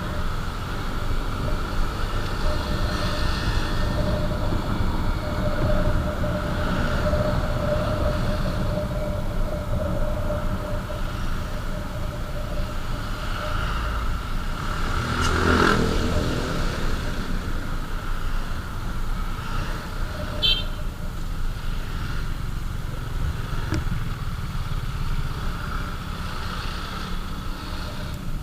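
Riding a motorcycle on the road: steady wind and road rumble over the engine, with passing traffic. A vehicle passes more loudly about halfway through.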